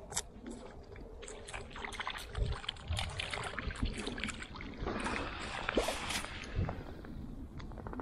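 A small hooked fish thrashing and splashing at the water's surface as it is pulled in on a fishing line, in bursts of crackling splashes over several seconds, with a few low thumps.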